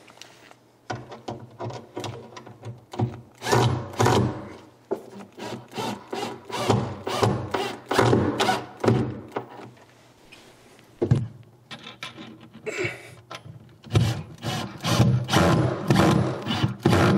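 Cordless driver driving long wood screws up into the altar's wooden top, in several bursts with short pauses between them.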